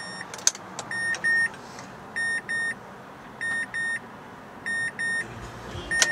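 2011 Mazda CX-7's cabin warning chime beeping in pairs, a double beep about every second and a quarter. A sharp click sounds about half a second in, and a low hum sets in near the end.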